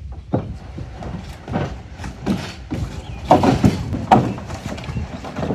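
Irregular knocks and scraping from a wooden chicken coop being slid by hand onto a trailer, with a few short vocal sounds around three to four seconds in.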